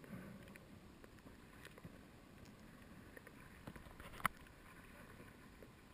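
Faint, muffled underwater ambience recorded through a camera housing, with scattered small clicks and one sharper click about four seconds in.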